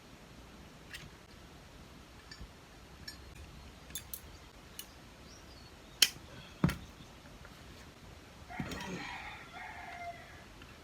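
A few light clicks, then two sharp knocks about six seconds in, half a second apart. Near the end a rooster crows once.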